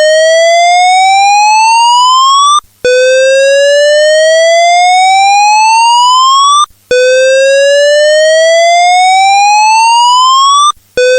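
Simulated Australian evacuation tone of a Simplex/Vigilant fire alarm voice evacuation system: a loud rising whoop that sweeps up over nearly four seconds, breaks off briefly and starts again, three times. It is the signal to evacuate immediately.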